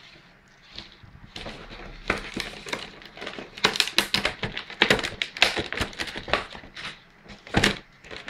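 Clear plastic blister packaging being pried open and handled, giving irregular crinkles and crackles. It is quieter for the first second or so, then busier and louder.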